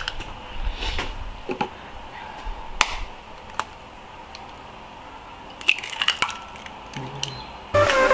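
Eggs being cracked into a glass measuring cup: a few sharp, separate shell cracks and taps, with a quick cluster around six seconds in. Background music comes in near the end.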